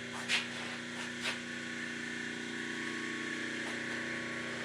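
Steady machine hum made of several even tones, with two sharp metallic clicks about a second apart near the start.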